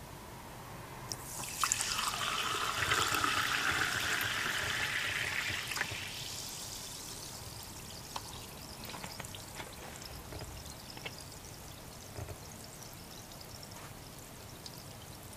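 Strongly carbonated sparkling water poured from a plastic bottle into a glass for about four seconds, starting about a second and a half in, then fizzing in the glass with a soft hiss and scattered bubble pops that slowly fade.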